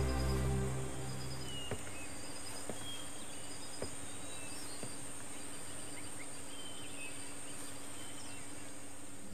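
Soundtrack music fading out in the first second or two, leaving an ambience of scattered short bird chirps over a steady high-pitched whine and a low hum, with a few faint clicks.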